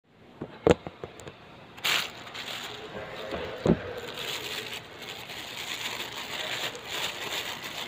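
A few knocks and bumps of a phone being handled, then a thin plastic bag crinkling and rustling steadily as a hand reaches into it.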